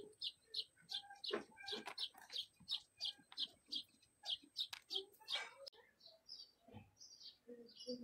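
A small bird chirping over and over, about three short high chirps a second, changing to a different chirping pattern after about six seconds. A few light clicks sound among the chirps, as small metal lock parts are handled on the wooden board.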